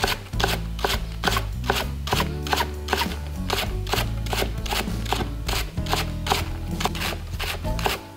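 Knife slicing cabbage leaves into fine shreds on a wooden cutting board, quick even strokes about five a second, over background music.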